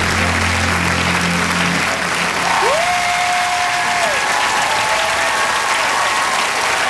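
Audience applauding and cheering at the end of a dance routine, as the last low notes of the music fade out about two seconds in. About halfway through, one long cheer rises, holds and falls above the clapping.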